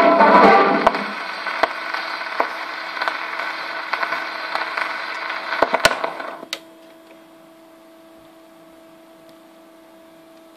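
The last of the music ends on an acoustic gramophone, leaving the steel needle running in the groove of a home-made glow-in-the-dark 78 rpm copy record: surface hiss with scattered clicks and crackle. About six and a half seconds in the hiss cuts off suddenly, leaving only a faint steady hum.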